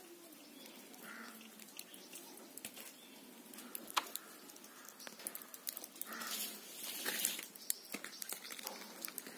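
Light clicks and taps from handling a plastic honey jar, a sharper one about four seconds in, with a few bird calls, louder from about six seconds in.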